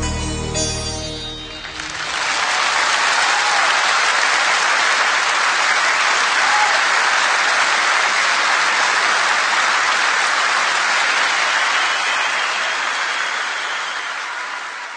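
Audience applause: the last notes of the music die away about two seconds in, then an audience claps steadily, fading out near the end.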